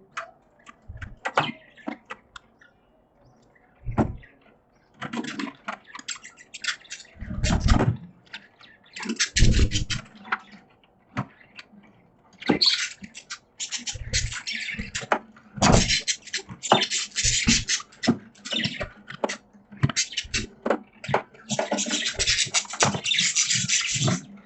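Pet budgies in their cage: bouts of scratchy, raspy chatter broken by many sharp clicks and several low thumps, busiest in the second half.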